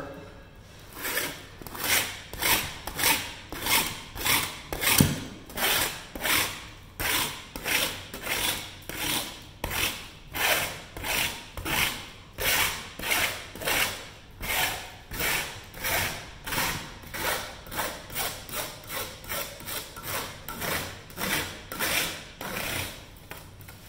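Hand file scraping along the edge of an embossed aluminum diamond plate panel in steady back-and-forth strokes, about two a second, knocking down a burr so the edge is not sharp.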